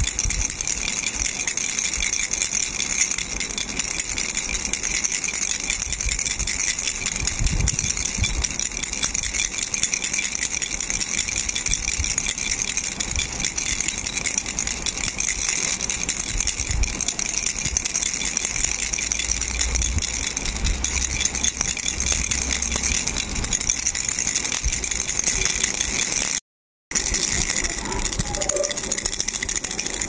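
Plastic baby rattle shaken steadily by hand, a fast continuous rattling that cuts out for a split second late on.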